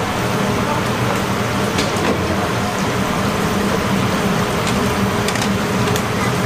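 Battered chicken frying in a large vat of hot oil: a steady, dense sizzle with scattered pops and crackles, over a low steady hum.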